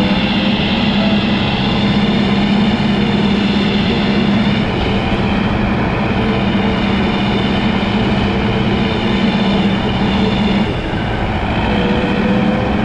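Hydrema 912 articulated dump truck's diesel engine running steadily under way, with a high wavering whine over the engine drone; the low engine note dips briefly about eleven seconds in.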